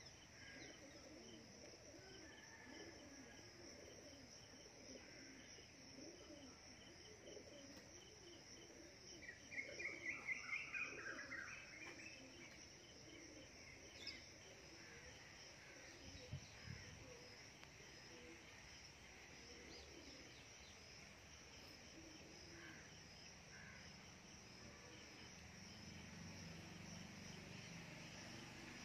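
Faint, steady outdoor drone of insects, with a bird calling a quick run of notes about ten seconds in, the loudest sound.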